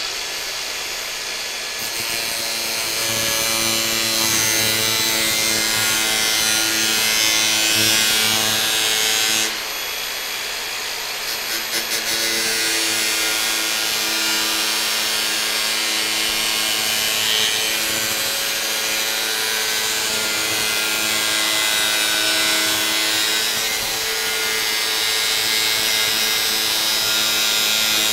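A Makita 4.5-inch angle grinder fitted with two back-to-back 24-grit sanding discs, grinding away crown molding to cope an inside-corner profile. A steady motor whine runs under a loud, gritty rasp of abrasive on wood; the rasp eases for about two seconds around ten seconds in, then picks up again.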